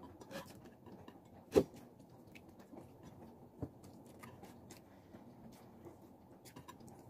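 Someone eating cooked shrimp by hand: faint chewing and the small clicks and crackles of shells being peeled, with one louder sharp click about a second and a half in.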